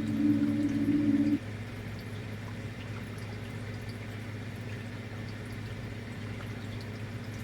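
Singing bowl tones ringing, cut off sharply about a second and a half in. After that a low steady hum and a soft watery hiss remain.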